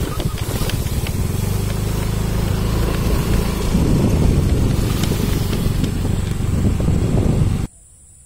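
Motorcycle engine running steadily under way on a rough dirt track, with a low, pulsing exhaust note. It cuts off suddenly near the end, leaving a faint hiss.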